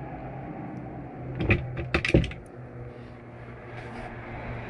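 A quick run of sharp clicks and knocks from a cabinet door and its latch being handled, about a second and a half in, over a steady low hum.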